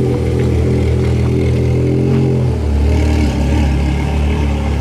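Porsche Carrera GT's V10 engine through a straight-pipe exhaust, running at low revs as the car rolls slowly. The steady low note drops in pitch about halfway through as the revs fall back toward idle.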